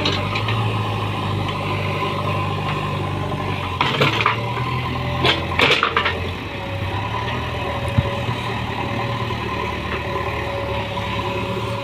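Heavy diesel engine of a JCB backhoe loader at work, running steadily with its pitch shifting a few times, with a handful of short knocks and scrapes in the middle.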